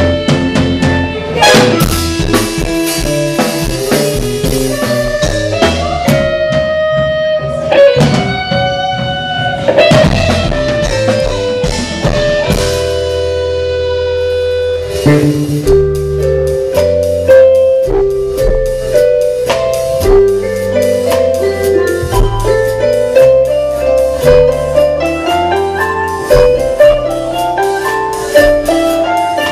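Live band music: brass with drums in the first half, changing about halfway through to a steady pulse of short repeated notes.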